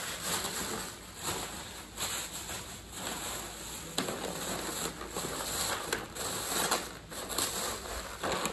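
Plastic grocery bags and packaging rustling and crinkling as they are handled, in an irregular run of crackles.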